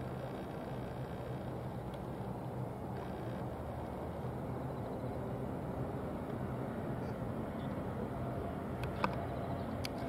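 Twin-engine jet airliner on final approach with its gear down, heard as a steady distant rumble of engine noise that grows slightly louder as it nears. A sharp click about nine seconds in.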